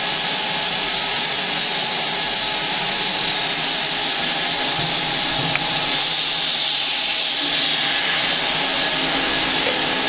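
Vacuum cleaner with its filter removed, boosted by a second blower, running steadily as it pulls air out of a sealed aluminum tank, heard from inside the tank as an even rushing noise. A single small click about halfway through.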